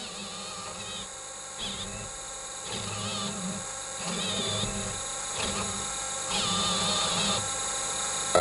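Stepper motors of a home-built painting robot driving its gantry and brush head in short moves: a string of brief high whines, each well under a second, starting and stopping about six times over a low steady hum.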